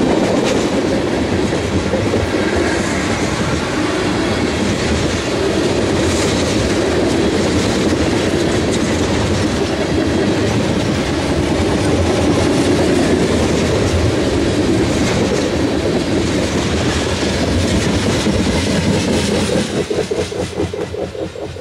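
Freight cars of a Canadian National freight train rolling past at speed: a steady rumble and rattle, with the wheels clacking over the rail joints. The sound fades near the end as the last car goes by.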